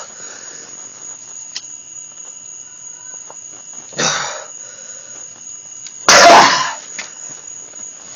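A man coughing hard in two bursts about two seconds apart, the second louder and sharper: a reaction to hot wing sauce snorted up his nose.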